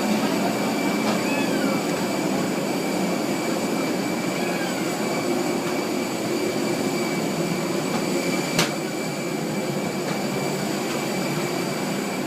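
Steady hum of an Airbus A321 airliner, with a thin high whine running through it and a single sharp click about eight and a half seconds in.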